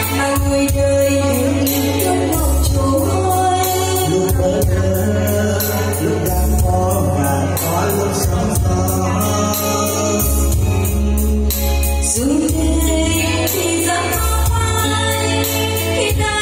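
Live band music: a woman and a man singing a duet through microphones, backed by electric guitar and keyboard, with a steady beat and bass.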